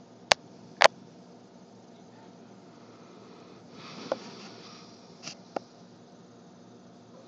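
A sleeping St. Bernard's noisy breathing: a soft drawn-in breath about four seconds in, with a few short, sharp breathy noises around it. Two sharp clicks near the start are the loudest sounds.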